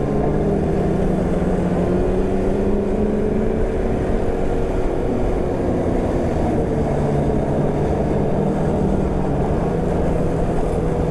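Polaris snowmobile engine running at a steady cruising speed as the sled travels along a packed snow trail, its pitch drifting only slightly, over a continuous rumble of track and wind noise.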